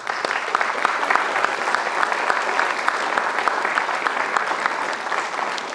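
Audience applauding: many hands clapping in a steady, dense patter that tapers slightly near the end.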